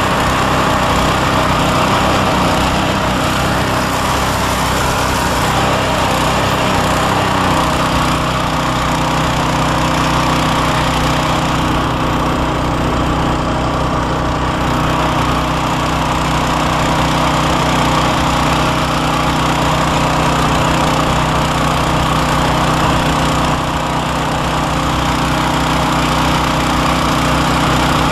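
John Deere two-stage snowblower's gas engine running steadily under load while its auger and chute throw snow. The tone changes slightly about seven seconds in.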